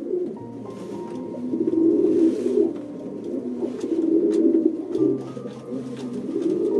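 A bird cooing in low, swelling phrases that repeat about every two seconds, over soft background music with long held notes.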